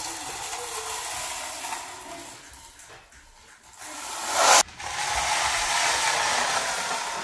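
Steel blade of a long-handled stand-up trowel scraping across wet cement-based floor-patch compound on a concrete slab, smoothing it in long strokes. The loudest stroke cuts off sharply a little past halfway, and another stroke follows.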